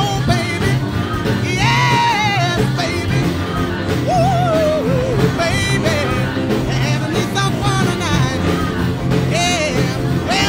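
Rock song with a singing voice over a steady bass line, laid over the video as background music.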